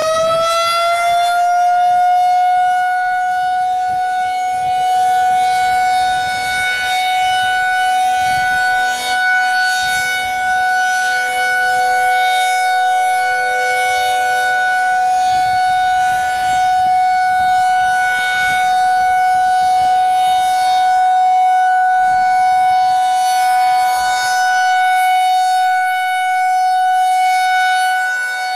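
Federal Signal 2001-SRN rotating electromechanical warning siren finishing its wind-up in the first second or so, then holding one steady, loud tone, its loudness swelling and fading slightly as the head turns. Other sirens sound faintly in the background.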